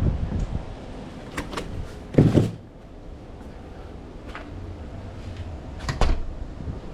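A few light clicks, then a loud low thud about two seconds in and another knock about six seconds in, over a faint steady low hum.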